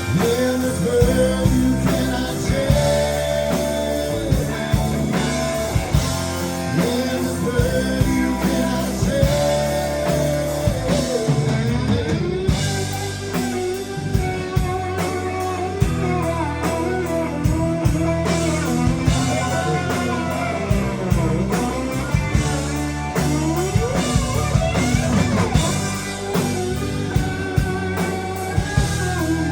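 Live band playing rock music, with an electric guitar carrying bending melody lines over bass and drums.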